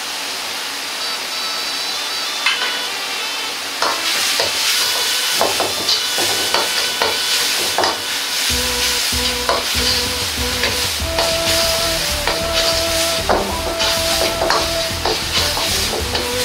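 Tomato sauce sizzling in a wok over a high gas flame. From about four seconds in, a metal ladle stirs and scrapes it, clanking repeatedly against the wok.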